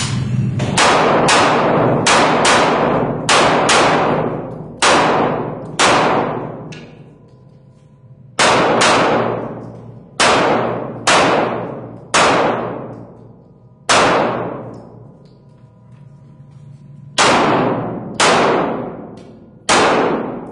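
Handgun shots in quick pairs and singles, about twenty in all, each followed by a long echoing tail. They come fast in the first four seconds, then more spaced out, one or two every second or so.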